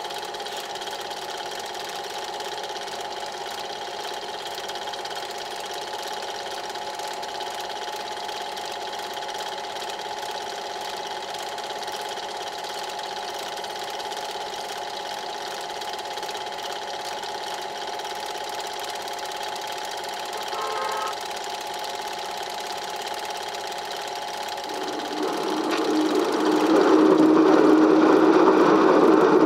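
A cine-film projector running with a steady whirring hum. About 25 seconds in, a louder rushing noise with a low tone rises over it.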